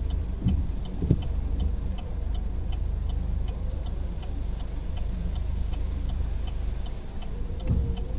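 A car's turn-signal indicator ticks evenly, about three ticks a second, inside the cabin over a low steady engine and road hum. Near the end, a windshield wiper sweeps across the wet glass.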